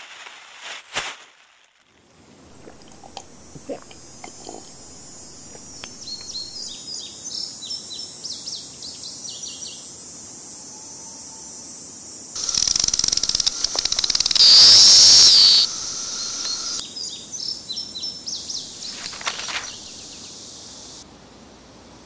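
Small birds chirping in short repeated calls. Past the middle comes a loud, steady, high buzz of a cicada lasting about three seconds and cutting off suddenly. There is a brief crinkle of plastic wrapping near the start.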